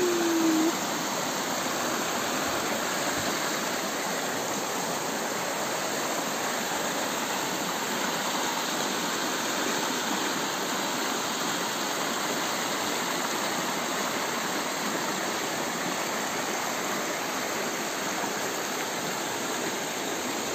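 River in flood after heavy rain, fast brown water rushing steadily past branches caught in the current.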